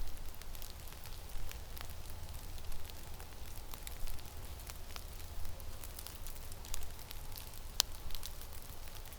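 Winter blizzard: wind rumbling on the microphone, with many scattered sharp crackling ticks and one stronger click about eight seconds in.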